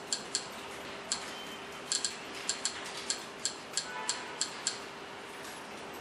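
A string of about a dozen short, sharp electronic clicks, irregularly spaced through the first five seconds, as a smartphone remote-control app steps through a media-centre menu. A faint steady hum and hiss runs underneath.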